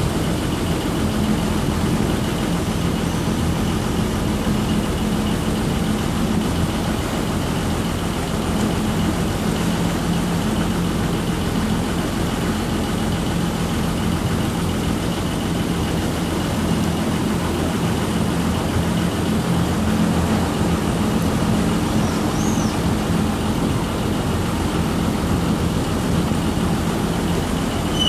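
Water taxi's engine running steadily as the boat cruises along the canal, a low hum under the wash of water churned up in its wake. A brief high squeak about three-quarters through.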